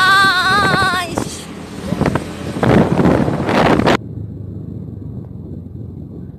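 Motor scooter ride with wind buffeting the phone microphone over the engine's running. A wavering high-pitched tone sounds in the first second. The loud wind rush stops suddenly about four seconds in, leaving a quieter low rumble.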